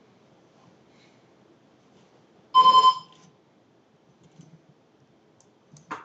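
PokerStars poker client's alert tone: a quick run of about four beeps lasting under half a second, signalling that the player must act and the time bank is being drawn on. A short click follows near the end.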